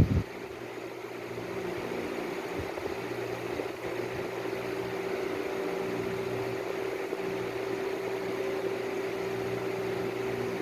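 A steady mechanical hum with a fixed droning tone, even throughout, with no breathing rhythm in it.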